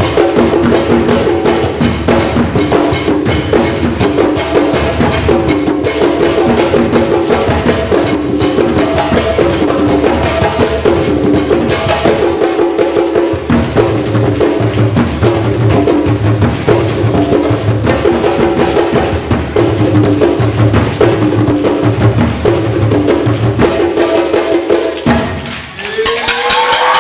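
Djembes and a large standing drum playing a fast, dense rhythm together, with a low bass stroke repeating about once a second. The drumming stops abruptly near the end, and the audience starts cheering.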